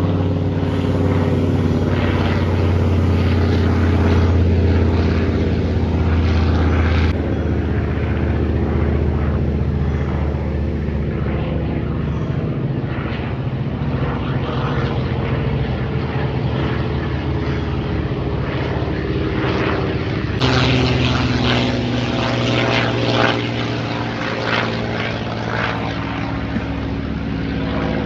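Single-engine piston warbird flying overhead: a steady engine and propeller drone whose pitch slides slowly down as it passes. The drone changes abruptly twice, then runs on brighter and higher near the end.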